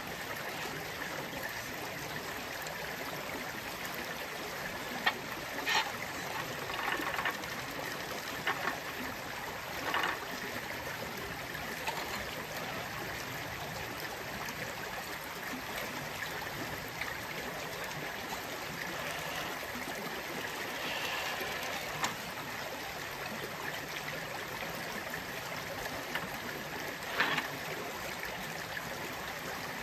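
Shallow creek water running over rocks in a steady rush, with a few short knocks and scrapes scattered through it.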